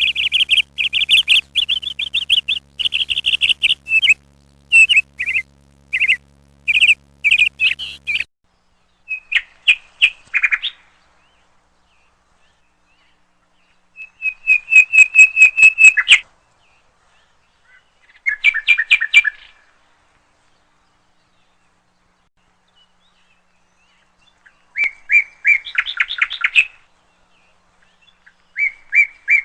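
A small bird chirping and trilling in quick runs of high notes, in phrases of one to two seconds with pauses of a few seconds between them.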